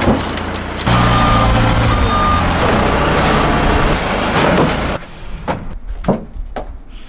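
Forklift engine running hard, with a short high beep twice about a second in. After about five seconds the engine gives way to a few thumps of feet on a car's sheet-metal body.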